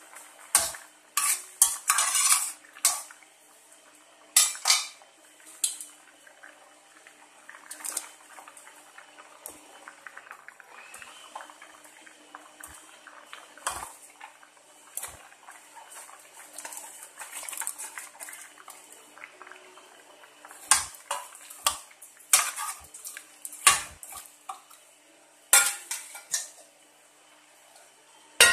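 Metal utensils clinking and knocking against a stainless steel cooking pot as vegetables are tipped and stirred into simmering dal. The sharp clinks come irregularly, in clusters in the first few seconds and again near the end, over a faint steady hum.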